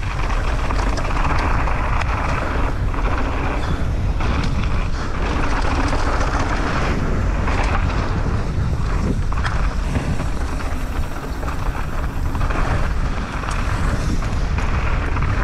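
Mountain bike ridden downhill on a dirt trail: tyres rushing over the dirt with scattered clicks and rattles from the bike, under heavy wind rumble on the camera microphone.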